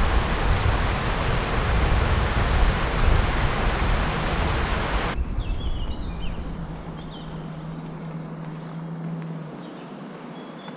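Water cascading over and through the top gates of a canal lock into the chamber, a steady loud rush. About five seconds in it cuts off abruptly, leaving a quieter scene with birds chirping and a faint steady hum.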